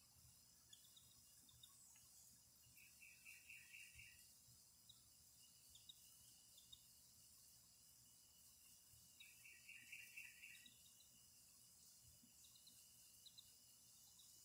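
Very faint outdoor chirping: a steady high insect-like drone, two short trills of about six rapid chirps each, and a few scattered faint high peeps.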